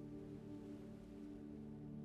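Soft ambient drone music: several low tones layered and held steady.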